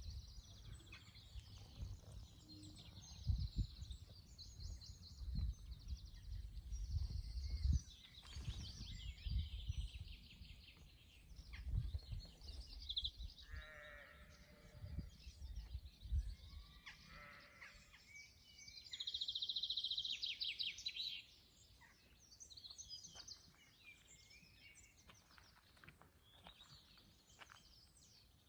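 Sheep bleating, with birds chirping throughout and gusts of wind rumbling on the microphone during the first half; one long bleat a little after two-thirds of the way in is the loudest sound.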